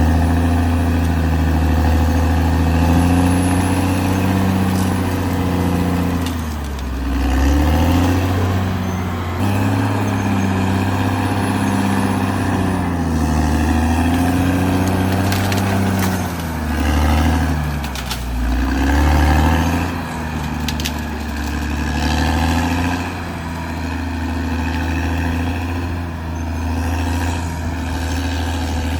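Caterpillar D6R XL bulldozer's diesel engine running under load while dozing, its pitch dipping and recovering a few times as it works. A few sharp clicks sound about two-thirds of the way through.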